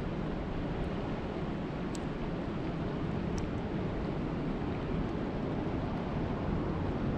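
Steady rushing water noise with a few faint high ticks.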